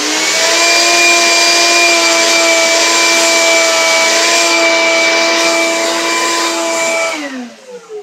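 Shop vac running with a steady whine and rush of air, its hose nozzle held into the top of a coffee grinder to suck out grounds. About seven seconds in it is switched off and winds down with a falling whine.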